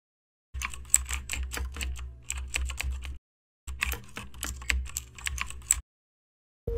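Typing sound effect for title text being typed out: two runs of rapid key clicks, about six a second, over a low hum, each lasting two to three seconds with a short silent pause between them. Music starts right at the end.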